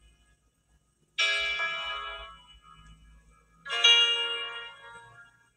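Two bell-like chimes, each a chord of several notes that starts sharply and fades away, the second about two and a half seconds after the first.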